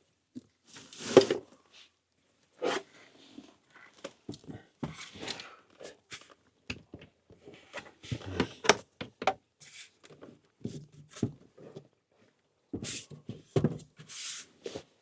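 Irregular knocks, clunks, scrapes and rustles of objects being handled and set down in a small space, as a portable power station is fitted into place. The loudest knock comes about a second in.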